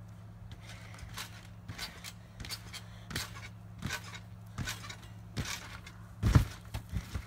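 A child bouncing on a trampoline: the mat thumps with each landing, roughly once every three-quarters of a second, with the heaviest landing about six seconds in.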